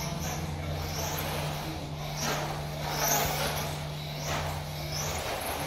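Electric 1/12-scale RC pan car's brushless motor whining, rising in pitch again and again as it accelerates around the track. A steady low hum sits underneath.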